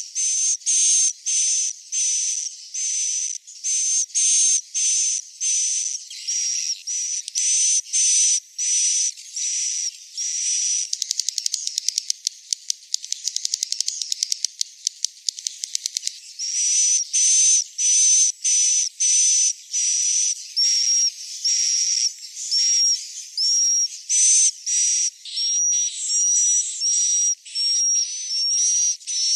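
Lure-sound recording of high-pitched, buzzy chirping calls repeated about twice a second, each carrying a thin whistle-like tone. A run of rapid clicking replaces the chirps for a few seconds in the middle.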